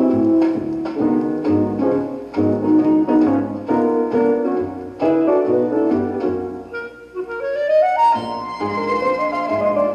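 Light instrumental background music: evenly paced piano notes under a woodwind melody, with a rising run about seven seconds in that leads into a held higher note.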